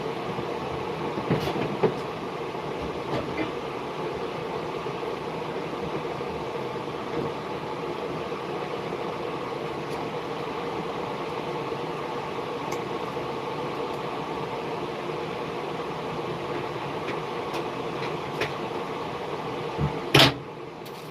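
Steady mechanical running noise with a constant hum, broken by a few light clicks and one sharp click near the end, after which it briefly drops away.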